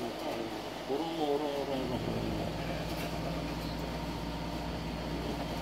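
A steady low mechanical hum, as of a motor running, sets in about two seconds in and holds even. Before it come faint wavering voices.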